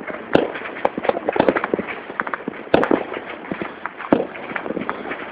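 Firecrackers and fireworks going off, many at once: a dense, irregular popping and banging, with a few louder bangs about half a second in, just under three seconds in and about four seconds in.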